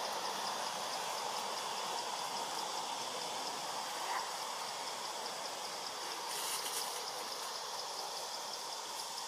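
Steady rushing outdoor noise, like a flowing stream, with a faint rapid even ticking high above it. A brief higher hiss comes about six and a half seconds in.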